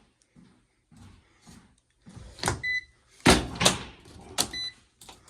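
A run of knocks and clatter of something being handled, starting about two seconds in, with two short high ringing tones among them.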